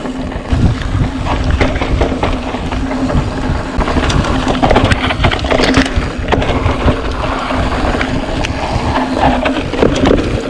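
Electric-assist mountain bike descending a dirt trail: tyre rumble, rattling and knocking from the chain and suspension over bumps, and wind on the microphone, with a steady low hum at one pitch throughout.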